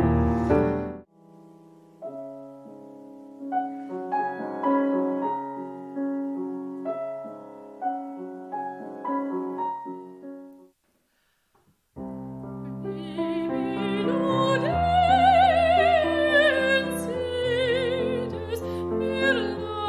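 A loud piano passage cuts off about a second in. A grand piano then plays alone, more quietly, until about ten seconds in. After about a second of silence, a soprano sings with wide vibrato in classical operatic style over piano accompaniment.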